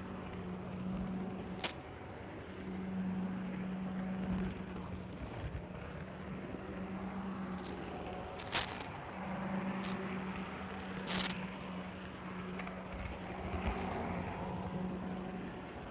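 N-scale model train running along the track: a steady low electric motor hum that drops out now and then, over a hiss, with a few sharp clicks.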